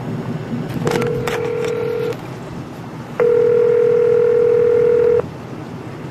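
Telephone ringback tone heard from the caller's phone while the other line rings: two steady rings, a shorter one about a second in and a louder two-second one a few seconds later.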